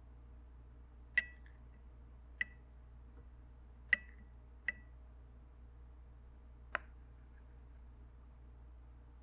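Paintbrush tapping against a glass of rinse water: four sharp, ringing clinks, then a duller tap near the end.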